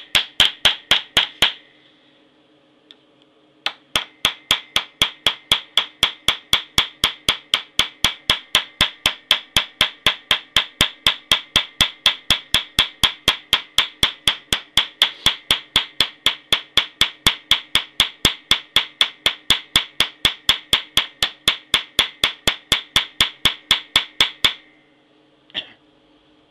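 Small hammer striking metal in a steady rhythm of about three blows a second, each with a short metallic ring: peening over a pin in a knife handle held on a bench vise. The blows stop briefly near the start, then run on until one last strike near the end.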